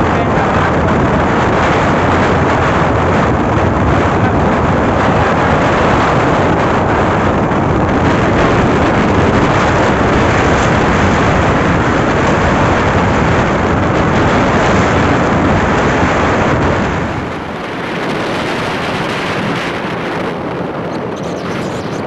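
Steady rush of wind on the microphone of a moving motorcycle, with road noise beneath. Near the end the noise drops a little and turns thinner, as at a cut to another stretch of riding.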